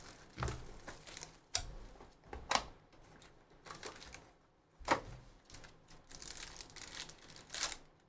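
Foil trading-card pack wrappers being torn open and crinkled by hand, with about five sharp crackles of the foil amid steady rustling as the cards are pulled out.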